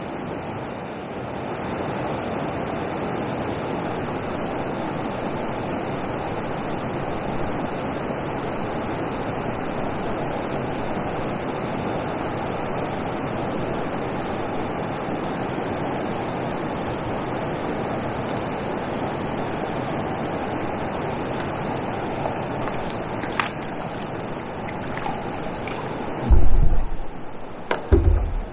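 Steady rushing of water from a river weir, with wind. Near the end a few sharp clicks and loud low thumps break in.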